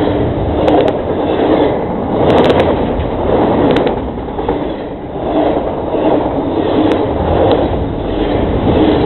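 Cars of a CSX freight train rolling past close to the track, the wheels and cars clattering in a steady rhythm of loud swells about every second and a half, with a few sharp clicks.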